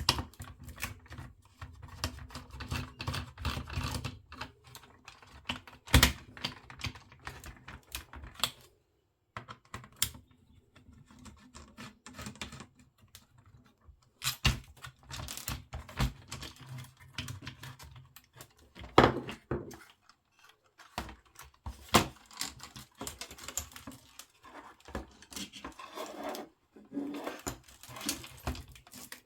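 Irregular clicking and tapping of small plastic parts and hand tools being handled while a radio cassette recorder is taken apart, with a few sharper knocks.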